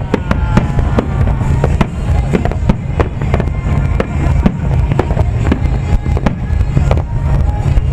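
Aerial firework shells bursting in quick, irregular succession: many sharp bangs and crackles, several a second, over a continuous low rumble.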